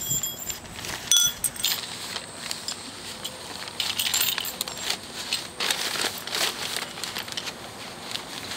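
Newspapers rustling and crinkling as they are gathered up and clutched, with a couple of sharp metallic clinks, like small coins, about a second in.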